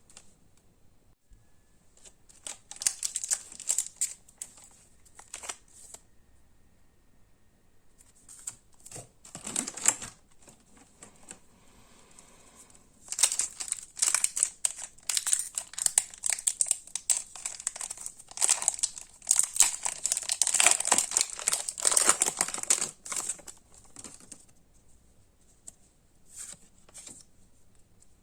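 Crinkly plastic packaging of Pokémon trading cards being handled and torn open, in short bouts of crinkling and tearing with a long busy stretch in the middle.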